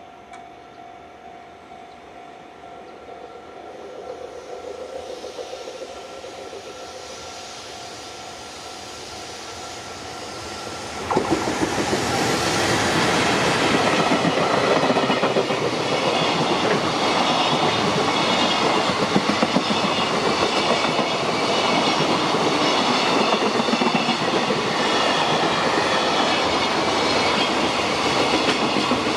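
A Japanese level-crossing alarm rings in a steady tone while a JR Freight train approaches with a growing rush. About eleven seconds in, the train reaches the crossing with a sudden jump in loudness. The wagons' wheels then clatter rhythmically over the rail joints as the long freight train passes.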